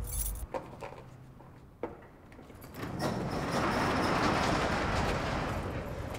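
A key rattling and a lock clicking, then an overhead garage door being raised, a steady rolling noise from about three seconds in.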